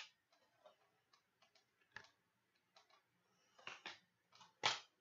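Faint, irregular clicks and taps of a plastic DVD case and its cardboard slipcover being handled, with a few sharper clicks, the loudest near the end.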